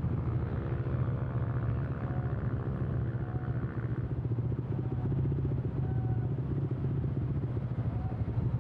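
Small motorcycle engine running steadily at low speed, with road and wind noise.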